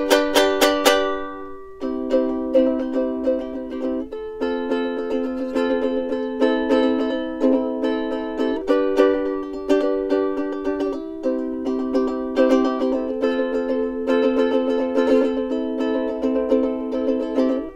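Solo soprano ukulele playing a plucked tune as background music, with a short break in the notes about two seconds in.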